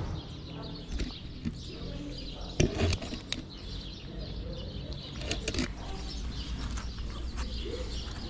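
Two cats eating food from plastic tubs: irregular chewing and smacking with sharp clicks, over a steady low rumble.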